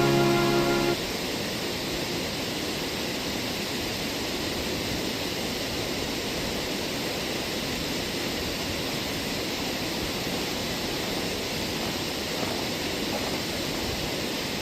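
Steady rush of a waterfall, an even hiss of falling water with no change in level. Background music cuts off about a second in.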